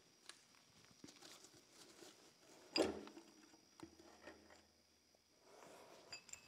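Differential carrier and ring gear being worked loose and lifted out of a 10-bolt rear axle housing: faint scattered metal clicks and scrapes, with one louder knock about three seconds in.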